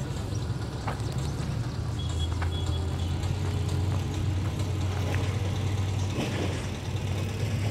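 A motor vehicle engine running with a steady low hum, which grows stronger from about two seconds in and eases off near six seconds.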